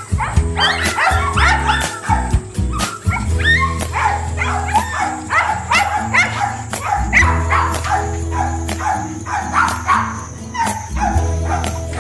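Several dogs barking and yipping rapidly and overlapping, many short rising calls a second, over background music with long held low notes.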